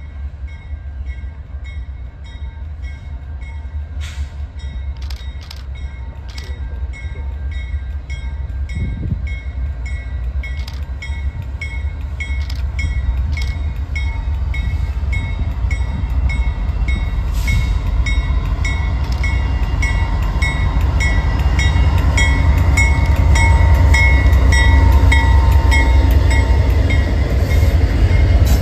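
A train approaching, its low rumble growing steadily louder, while a grade-crossing bell dings steadily about twice a second.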